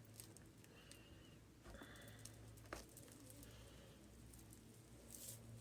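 Near silence: a faint steady low hum with a few soft, scattered clicks.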